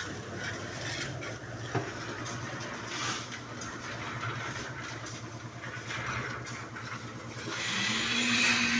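A machine's engine running steadily at a construction site, with scattered light knocks and one sharper knock about two seconds in. Near the end the engine note steps up in pitch and gets louder.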